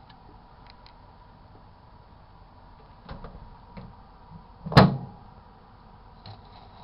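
Microwave oven door shut with one loud latching knock about five seconds in, after a few light clicks and knocks.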